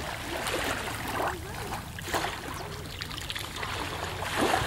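Small waves lapping and washing against a rock at the water's edge on a sandy shore, swelling about once a second, over a low rumble.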